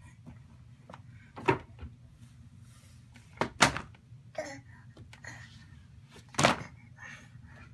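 Children's board books pulled off a wooden bookshelf and dropping onto a pile of books on the floor: sharp thuds about a second and a half in, a quick pair near the middle, and one more near the end.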